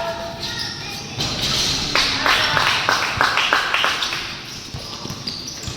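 Hand clapping in a run of quick, evenly spaced claps, about three a second, starting about two seconds in and lasting under two seconds, over the background noise of a basketball gym.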